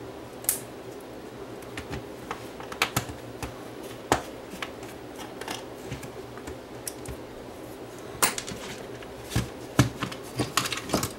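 Plastic battery-charger case being taken apart by hand on a wooden workbench: scattered light clicks and taps as small screws are taken out and handled, then a quicker run of plastic clicks near the end as the case halves are pulled apart.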